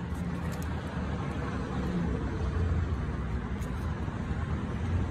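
Steady low rumble of vehicle traffic or a running engine, with a few faint clicks.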